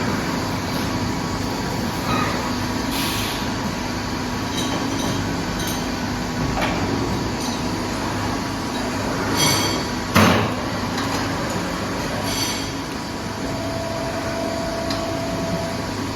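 Steady mechanical hum of a running CNC machine, with a sharp clank about ten seconds in.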